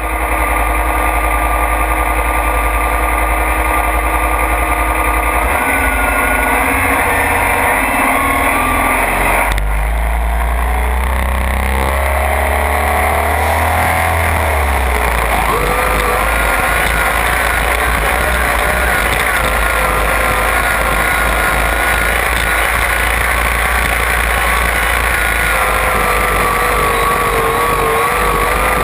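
Pro stock pulling tractor's turbocharged diesel engine running flat out under load as it pulls the sled, heard from on board close to the exhaust stack. Its pitch climbs about a third of the way through, then holds with a high, wavering whine on top.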